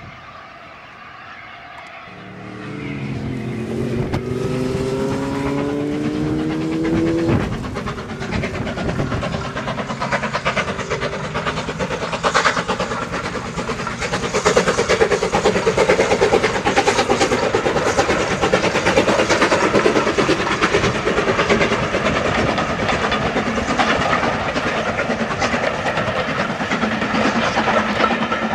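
A steam locomotive hauling a train of coaches past: its exhaust chuffs and the coach wheels clatter over the rail joints, loudest in the middle stretch. It is preceded by a sound of several rising tones that stops abruptly about seven seconds in.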